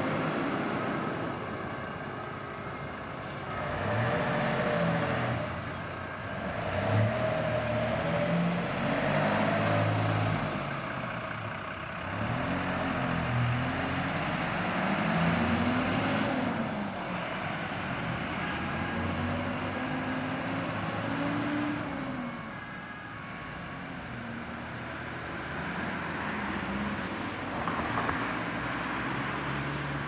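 Several diesel fire engines pulling away one after another, their engines revving up and dropping back again and again as they shift through the gears.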